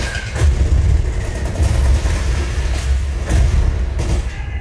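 Deep, heavy bass rumble from an SVS PB16 Ultra home theater subwoofer playing demo soundtrack audio, with a few sharp hits over it. There is no port chuffing or cabinet rattle.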